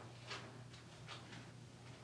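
Soft swishing strokes of the therapist's hands rubbing back and forth over the shoulder during massage, about two to three strokes a second, over a low steady hum.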